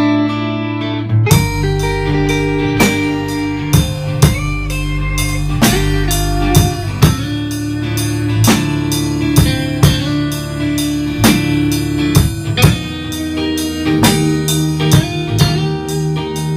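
A band rehearsing with electric guitar and drum kit: sustained guitar and low notes at first, then the drums come in about a second in and keep a beat with the band.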